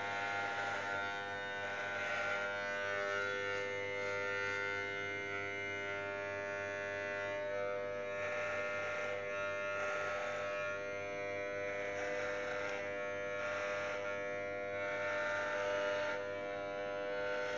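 Corded electric hair clippers running with a steady buzz while shaving long hair off a scalp. The sound turns rougher every few seconds as the blades pass through hair.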